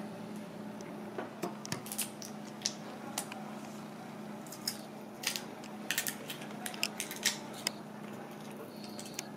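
Crisp clicks and crackles of a raw giant tiger prawn's shell being gripped and peeled apart by hand, coming thickest in the second half, over a steady hum.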